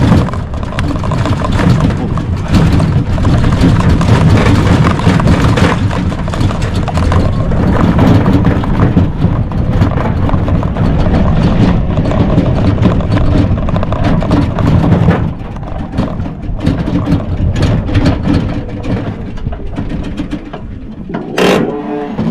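Kuba GL 1800 MAX tricycle riding along a bumpy dirt track: its drive running under heavy wind noise on the microphone, with knocks and rattles from the rough ground. The noise drops about two-thirds of the way through.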